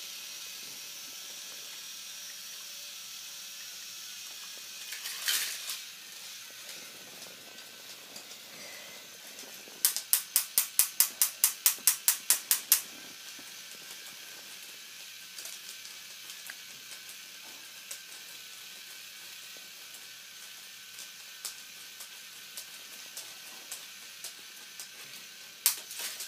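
K'nex toy roller coaster in action: a quick regular run of about fourteen sharp plastic clicks, some four a second, about ten seconds in, then scattered ticks, over a faint steady hiss.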